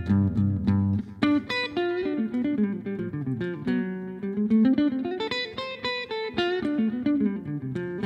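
Solo guitar playing an instrumental break in a song: picked melody notes and quick runs, some sliding in pitch, over low bass notes, with no singing.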